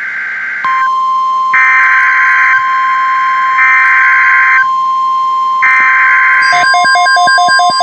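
NOAA Weather Radio-style alert: a steady 1050 Hz warning alarm tone starts about a second in. Three one-second bursts of buzzing SAME digital header data sound over it, each followed by a gap of about a second. Near the end a rapid beeping pattern of chopped tones comes in, about six beeps a second, announcing a severe thunderstorm watch.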